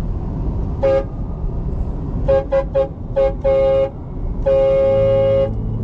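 Aftermarket train-style air horn on a Toyota Prius sounding in blasts: one short toot, four quick toots, a slightly longer one, then a blast held for about a second. Near the end the horn's on-demand air compressor starts up with a steady low hum as it rebuilds pressure.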